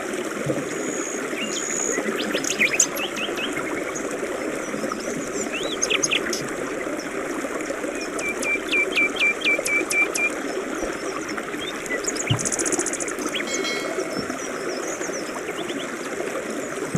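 A river running steadily with songbirds calling over it: scattered whistles and chirps, a quick run of about eight repeated notes a little past halfway, and a short buzzy trill soon after.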